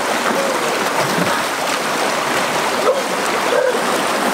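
Rushing water of a small rocky stream spilling in cascades over boulders, a steady hiss.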